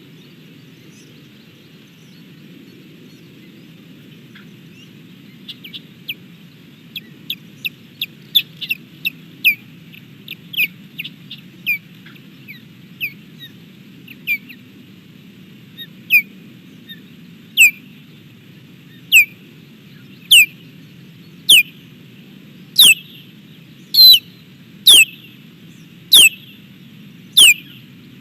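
Osprey calling: loud, sharp, downward-slurred whistled notes, starting about five seconds in as a quick, uneven series, then settling into a steady run of about one call every second and a quarter. A steady low background hum lies under them.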